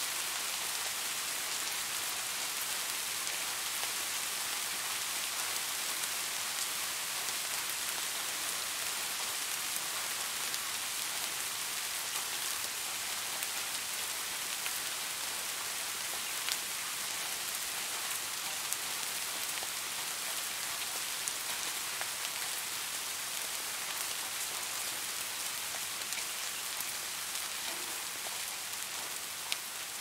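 Steady rain falling on wet pavement and into a puddle: an even hiss with a few louder single drops ticking out of it. It eases off slightly near the end.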